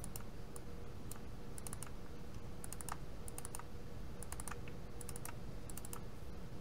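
Computer mouse button clicking, mostly double-clicks in quick pairs and small clusters about every second, over a low steady background noise.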